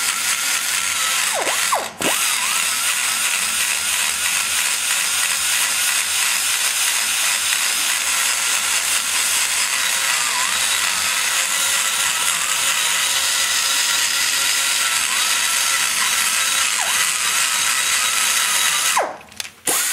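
Die grinder spinning a flame-shaped carbide burr that cuts into the exhaust bowl of a Chevy 186 small-block cylinder head. It gives a steady high whine over dense grinding hiss, and the pitch sags now and then as the cutter bites. It spins down and pauses briefly about two seconds in, and again near the end.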